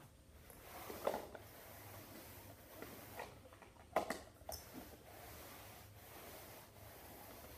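Plastic cups being shuffled on a floor mat: soft sliding and rustling with a few light knocks as they are set down, the loudest about one second and four seconds in.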